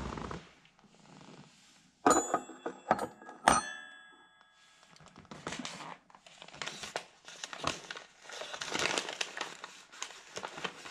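A few sharp clinks that ring briefly, about two to three and a half seconds in, then the crinkling and rustling of a Popeyes chicken sandwich's paper wrapper being handled and opened through the second half.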